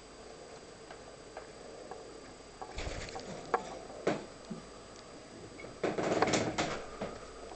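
A few faint light ticks of a cockatiel's beak pecking at a hard-boiled egg, then rustling and sharp knocks from the camera being handled and swung about, loudest a little before the end.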